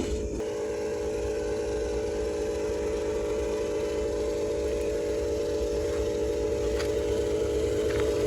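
Electric motors and plastic gearboxes of a Huina RC construction model running with a steady whine, a brief dip just after the start and a couple of faint ticks near the end.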